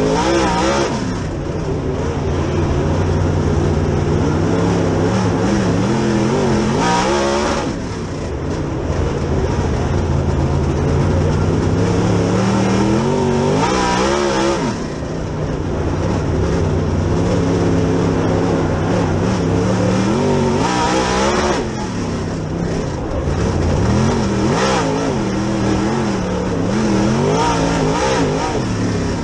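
Super late model dirt car's V8 engine at racing speed, heard from inside the cockpit. It runs hard down each straight and drops off briefly going into each corner, about every seven seconds, then picks up again.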